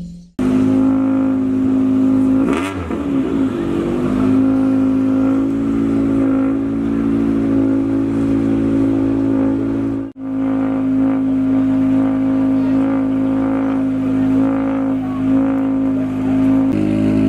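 Peugeot 208 R5 T16 rally car's turbocharged four-cylinder engine running loud at a steady, unchanging engine speed. It wavers and dips briefly about two and a half seconds in, cuts out for an instant about ten seconds in, then carries on at the same pitch.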